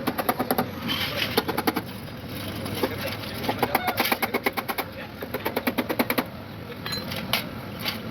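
Rapid metal-on-metal tapping on radiator parts, about ten sharp taps a second in runs of a second or so with short pauses, then a few single knocks near the end.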